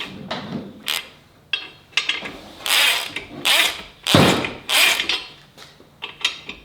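A ratchet wrench ratcheting in four or five short strokes, with a few sharp metal clicks between them.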